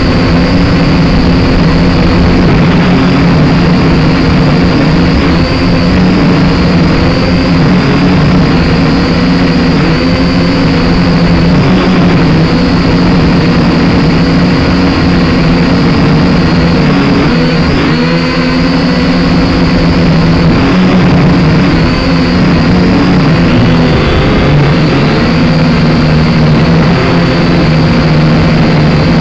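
Small quadcopter drone's electric motors and propellers whining steadily close to the microphone, the pitch dipping and rising as it is flown in gusty wind. Wind rumbles on the microphone underneath.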